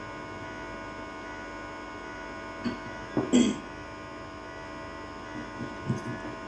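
Steady electrical hum through the microphone, with a short rustle of the handheld microphone being moved about three seconds in and a few soft knocks near the end.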